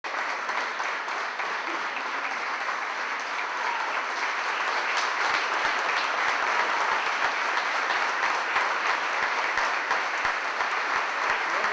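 Audience applauding steadily, a little louder from about five seconds in.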